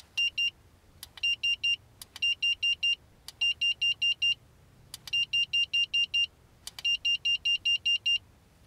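ImmersionRC Duo 5800 video receiver beeping as its button is pressed: six sharp clicks, each followed by a group of short, identical high beeps, the groups growing longer from about two beeps to about eight, as the receiver is stepped through its channels.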